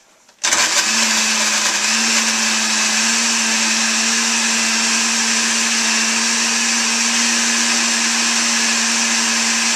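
Countertop blender switching on about half a second in and running steadily, blending a spinach, banana and coconut-milk shake with a couple of ice cubes just added.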